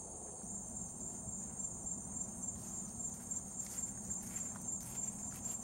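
Crickets chirping in a steady, pulsing high trill, with faint rustling from about two and a half seconds in.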